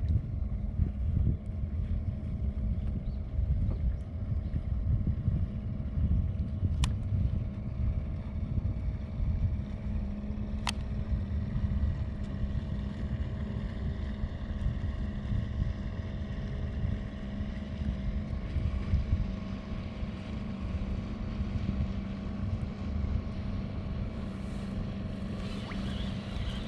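Wind buffeting the microphone, a rough, uneven low rumble, over a steady low hum. Two sharp clicks stand out in the first half, about four seconds apart.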